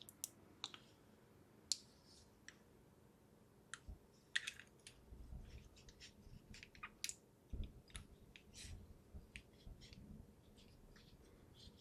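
Faint, scattered small clicks and soft handling noises, with a few dull low taps, as a chilled phase-change thermal pad is worked by hand.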